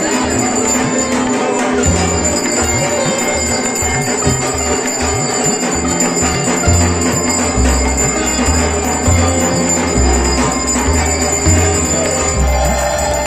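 Aarti bell ringing continuously during lamp worship before the Durga idol, over music with a low beat that grows heavier about halfway through.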